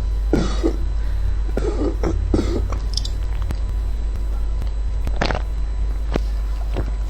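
A young woman making several short, small throat sounds, spaced out over a few seconds, over a steady low hum.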